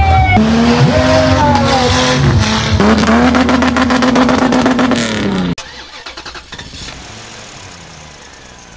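Tubular off-road buggy's engine revving hard as it drives through deep mud, its pitch climbing, holding and falling several times. It cuts off suddenly about five and a half seconds in, leaving a much quieter, steady engine-like sound.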